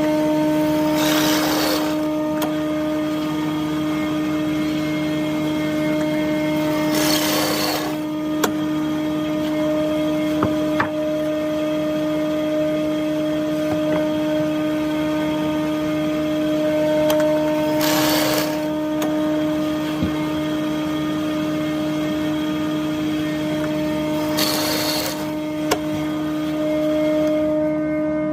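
A woodworking power machine running with a steady hum. Four times it gives a short hissing surge about a second long, as wood is cut, with a few sharp clicks in between.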